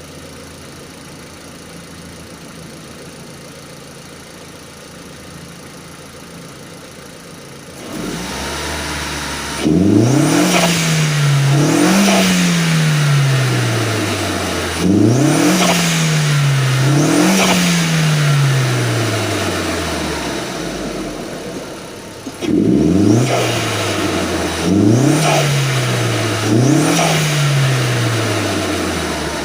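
SEAT Leon Mk1 1.8-litre 20-valve turbo engine running steadily, then pulling up through the revs several times in two groups, each climb broken by a short dip before the revs fall away. At the dips the HKS SSQV4 atmospheric blow-off valve vents with a sharp rush of air, its whistle gone now that the insert that split the flow has been removed.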